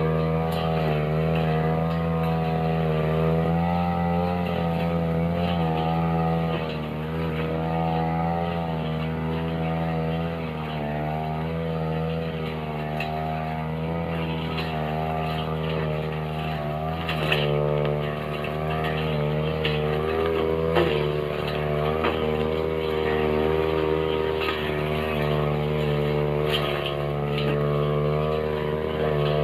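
Backpack brush cutter's small engine running continuously, its pitch wavering up and down as the blade cuts through grass mixed with woody stems and vines. Two sharp knocks stand out, one a little past halfway and another a few seconds later.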